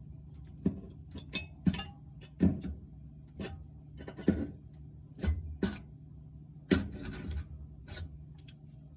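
Irregular sharp knocks and clatter, a hard tool chipping at the ice built up on a refrigerator's evaporator, about a dozen strikes with pauses between, over a steady low hum.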